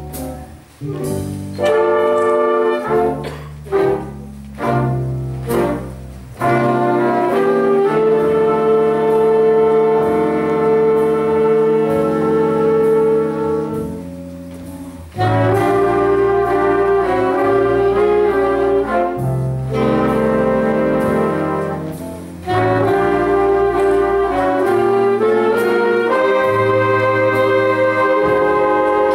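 Big band of saxophones, trumpets, trombones and piano playing a slow jazz ballad. Short separate ensemble chords in the first few seconds give way to long held brass-and-sax chords, with a brief dip about halfway through.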